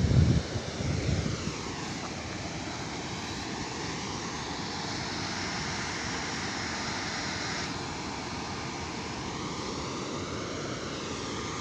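Steady rush of water pouring through an open dam spillway gate and churning into the river below, with wind buffeting the microphone in the first second or so.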